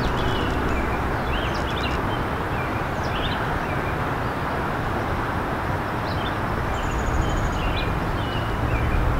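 Steady outdoor rumble and hiss, with small birds chirping now and then and a short high trill about seven seconds in.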